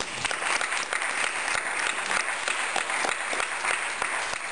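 Audience applauding, a dense patter of many hands clapping in welcome for a speaker who has just been introduced, thinning out near the end.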